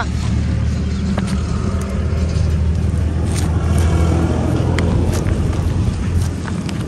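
Diesel tractor engine idling steadily, a low even hum.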